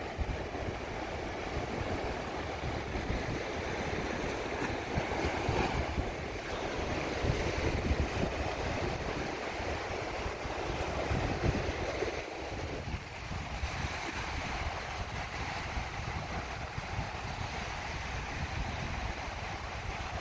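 Wind buffeting the microphone over a steady rushing noise; the rush thins a little about two-thirds of the way through.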